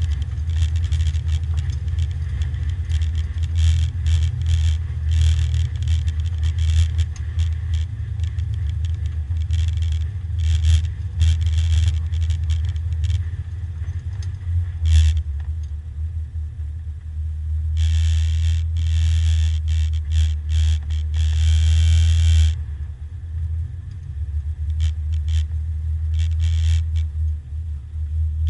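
Porsche 924 race car's four-cylinder engine running at low revs as the car rolls slowly, heard inside the stripped cabin, with frequent short clatters and a few seconds of loud hiss past the middle.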